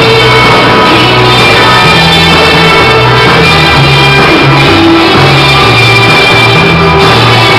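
Rock band playing, with a bass line stepping between held notes under guitar.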